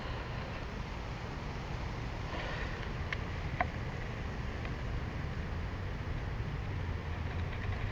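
Wind buffeting the action-camera microphone as a steady low rumble. Two small clicks a little past three seconds in, as needle-nose pliers grip the hook in a small perch's mouth.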